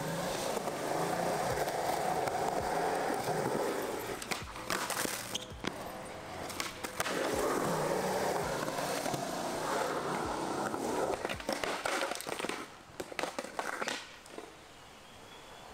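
Skateboard wheels rolling on concrete, with bursts of sharp clacks and knocks of the board about five seconds in and again around thirteen seconds, where the skater falls on the quarter pipe and the board flies off. After that it goes much quieter.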